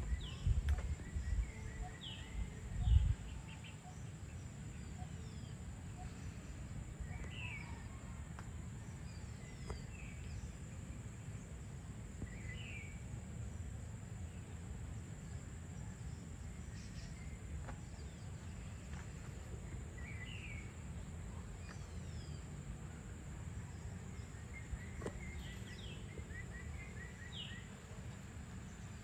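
Birds chirping now and then, short high chirps every second or two, over a steady low outdoor rumble. A few louder low bumps come in the first three seconds, and a faint steady high-pitched tone runs underneath.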